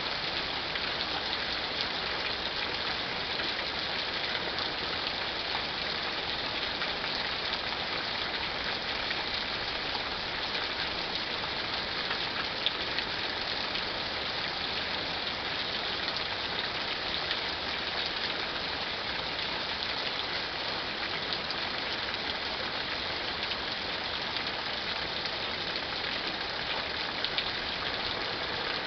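Steady thunderstorm rain, an even hiss with no let-up and no thunder.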